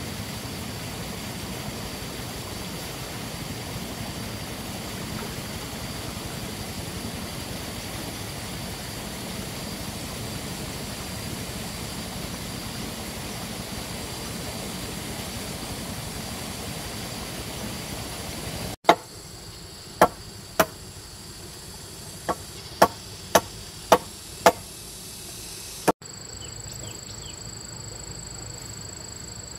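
A steady rushing noise, then, after a cut, about eight sharp, hard tool strikes at an uneven pace over some six seconds. After another cut, a steady high insect drone.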